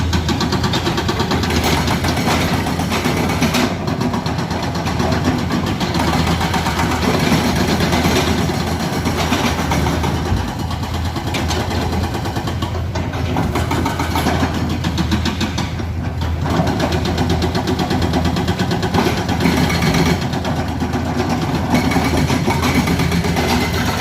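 Hydraulic excavator's diesel engine running loudly under load while digging, its note and the grinding noise over it rising and easing every few seconds as the machine works.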